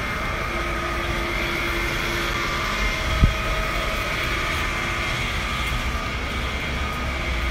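Steady city street noise with a low rumble and a few faint steady hums, broken by a single sharp tap about three seconds in.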